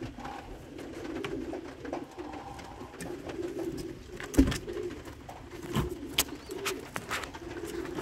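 Domestic pigeons cooing steadily in a loft. A few sharp knocks come in the second half, the loudest about halfway through.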